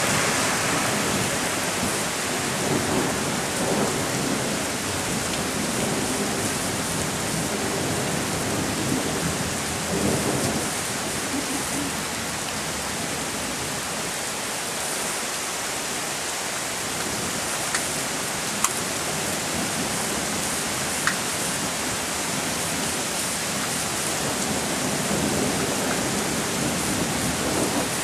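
Heavy thunderstorm rain pouring steadily, with low rumbles of thunder in the first half and again near the end. A few sharp ticks stand out in the middle.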